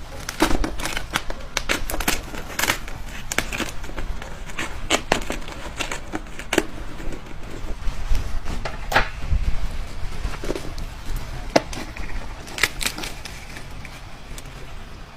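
Close-miked ASMR eating: irregular crisp clicks and crackles of food being bitten and chewed, a few every second.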